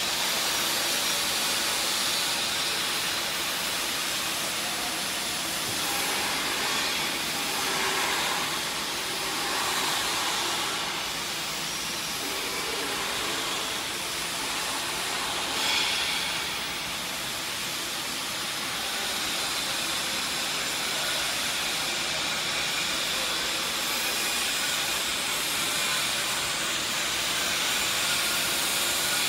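Steady hissing background noise of a factory workshop, with a brief louder moment about halfway through.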